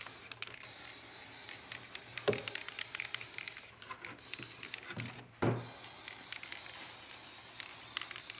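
Aerosol spray paint can hissing as white paint is sprayed into a clear RC body shell, in long bursts with three short breaks. Two light knocks come about two and five and a half seconds in.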